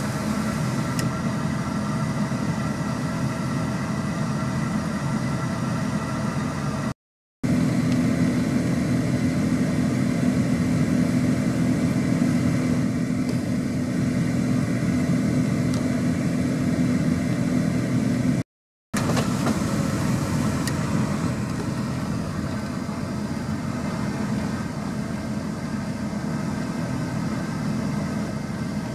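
A vehicle engine idling with a steady low hum, cutting out briefly twice.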